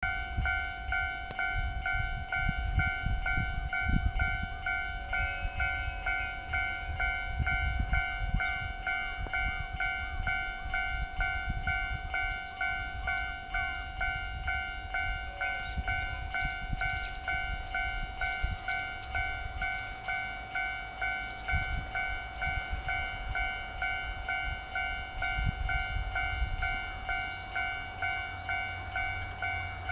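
A Japanese level-crossing warning bell rings in a steady, even rhythm. Under it is a low rumble that grows near the end as a KiHa E130 series diesel railcar approaches.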